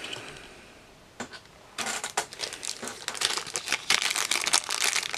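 Crinkling, rustling handling noise in quick irregular bursts, starting about two seconds in after a quiet stretch with one faint click.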